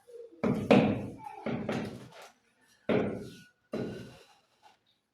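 Tiling work: four sharp knocks, roughly a second apart, each dying away quickly.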